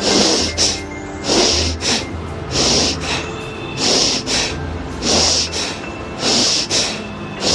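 A woman breathing forcefully through the nose in a kapalbhati-style pranayama exercise. The breaths come in even pairs, a longer breath then a shorter one, about one pair every 1.2 seconds, six times over.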